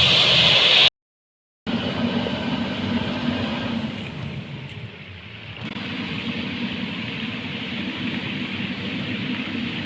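Heavy construction machinery engines running steadily, with an abrupt cut to silence about a second in before the machine sound resumes.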